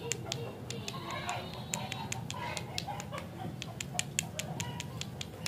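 Sharp, irregular clicks and ticks, several a second, over a steady low hum.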